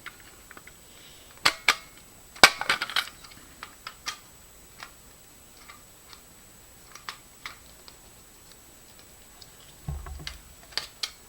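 Clicks and knocks of a Firelite BG-12L fire alarm pull station's door being worked back onto the box: a few sharp clicks about one and a half and two and a half seconds in, the second the loudest, scattered lighter ticks, and more handling clatter near the end.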